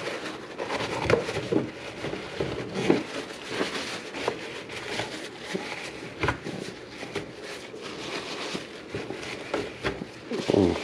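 Irregular rustling, rubbing and light clicks and knocks of hands at work, handling paper towels and small parts while wiping grease, with one sharper knock about six seconds in.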